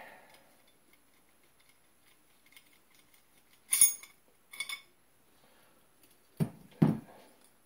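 An AR-15 front sight base being worked by hand along and off the barrel: a sharp metallic clink that rings briefly about four seconds in, a lighter clink just after, then two dull knocks near the end.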